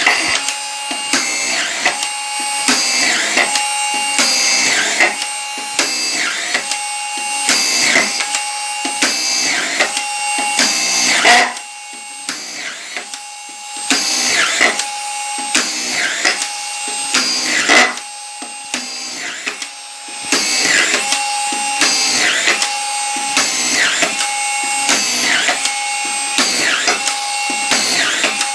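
Keyang ASD-1800L 18V cordless collated (magazine) screwdriver driving screws one after another, about one a second, its motor whine rising and dipping with each screw. It pauses briefly twice partway through.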